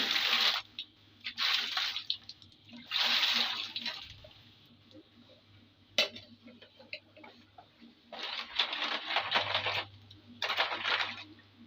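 Wet sucking and slurping noises while eating mud crab, coming in five bursts of about a second each, with one sharp click about six seconds in.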